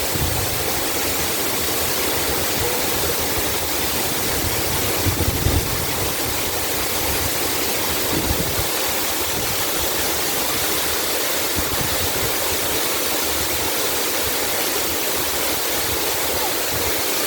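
Waterfall: a steady, even rush of falling water, with brief low rumbles about five and eight seconds in.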